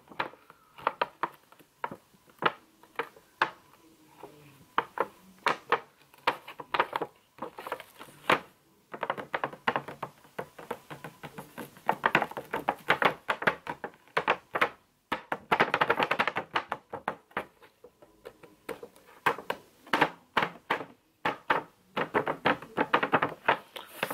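Packaging of an Epson ink cartridge multipack being handled and opened by hand: irregular clicks and taps of card and plastic, with denser crinkling stretches about halfway through.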